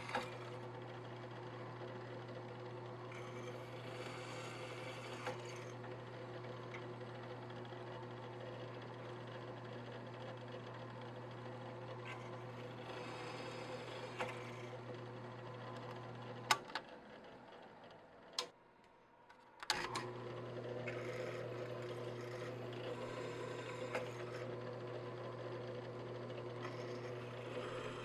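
Bench drill press motor running with a steady hum while its twist bit cuts holes through aluminium plate, the cutting heard as several short stretches of hiss. About two-thirds through there are a few sharp clicks and the hum drops out for a couple of seconds.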